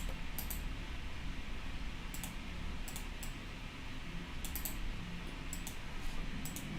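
Scattered clicks of computer keyboard keys, a few at a time with pauses of a second or so between them, over a low steady hum.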